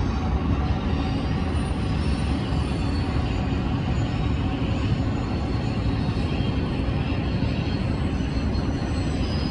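Yamaha dirt bike's single-cylinder engine running at low revs, a steady low rumble, as the bike rolls down a steep grass slope.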